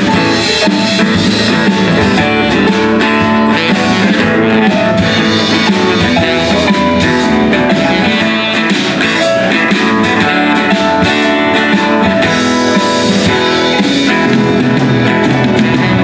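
Live blues-rock band playing an instrumental passage with no vocals: saxophone, strummed acoustic guitar, electric bass and drum kit.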